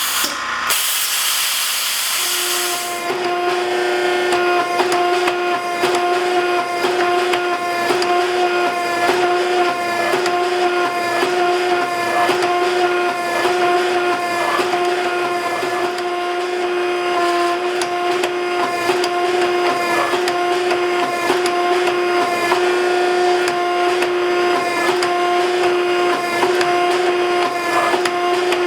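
A forging press's electric hydraulic pump starts about two seconds in and runs with a steady hum, after a short stretch of even hiss, with frequent light knocks over it.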